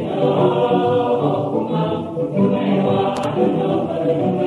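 A choir singing a church hymn, many voices together in harmony.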